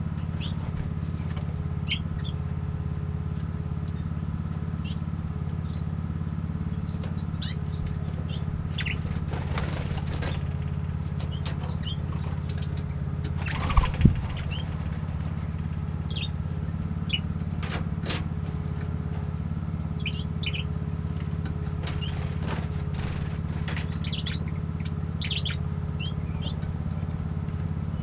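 Small aviary birds chirping, with short high calls scattered throughout over a steady low hum. A few sharp knocks sound near the middle.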